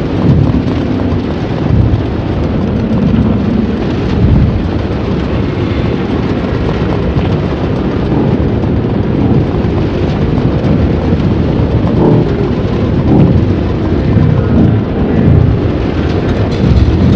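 Abstract sound-design effect: a dense, continuous rumbling noise with repeated low surges and a few faint held tones.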